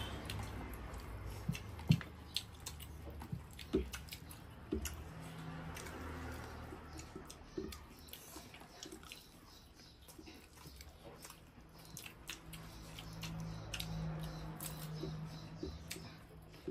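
Eating sounds: chewing and mouth smacks, with scattered sharp clicks as fingers work rice and food on the plates.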